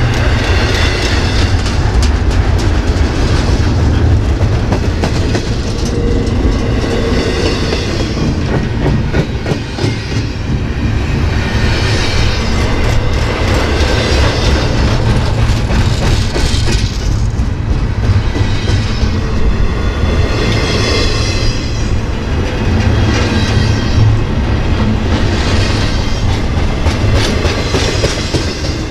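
Double-stack intermodal freight train's loaded well cars rolling past close by: a loud, steady rumble of steel wheels on the rails with repeated clacking.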